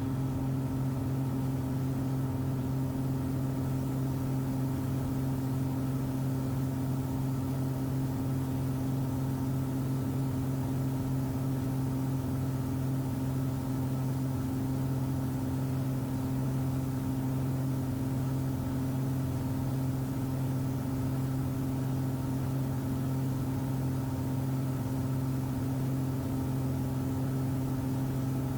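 Steady drone of the Cessna Skymaster's front and rear piston engines heard from the cabin on final approach, holding one even pitch throughout.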